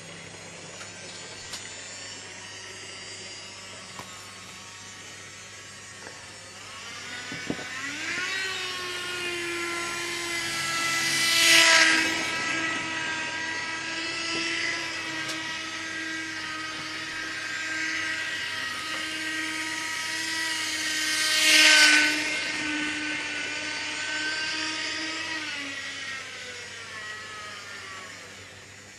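N gauge model locomotive's small electric motor whining as it runs, rising in pitch as it gets up to speed about seven seconds in. The whine swells loud twice, about ten seconds apart, then drops in pitch as the locomotive slows and stops near the end.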